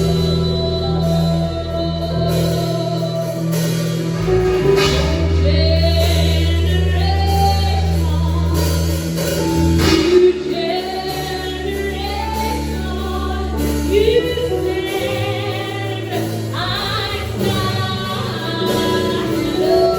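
Gospel praise song: voices singing a melody over long, held bass notes.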